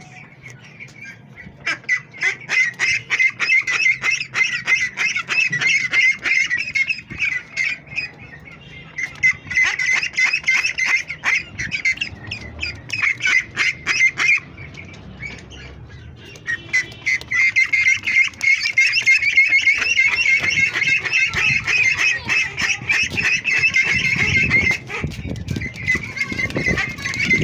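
A flock of ducklings calling loudly all at once, a dense chorus in three long bouts with short lulls between.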